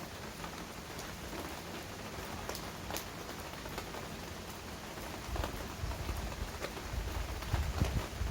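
Steady rain falling, with individual drops ticking close by at scattered moments. From about five seconds in, a low rumble rises beneath the rain and grows toward the end.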